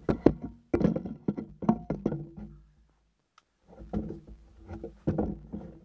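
Irregular knocks and taps of handling noise inside a fabric hunting blind, sounding boxed-in and close. They come in two clusters with a quiet gap of about a second in the middle.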